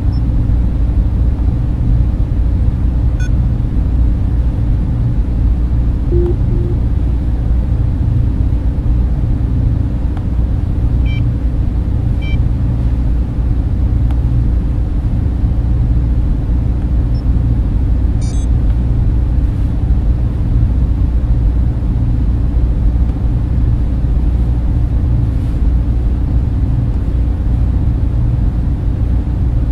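Sci-fi spaceship interior ambience: a steady, deep machine hum and rumble, with a few faint, short electronic blips scattered through it.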